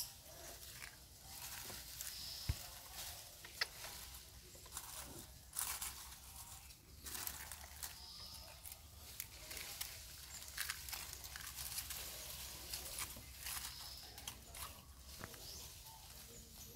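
Faint, irregular rustling and crackling of dry leaf litter, with scattered light clicks.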